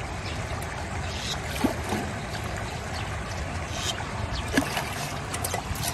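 Steady rushing water noise, with a few light clicks scattered through it.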